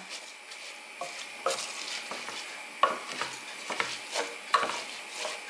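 Wooden spoon stirring washed basmati rice and peas in hot oil in an aluminium pan: irregular light scrapes and knocks of the spoon against the pan, over a faint steady sizzle.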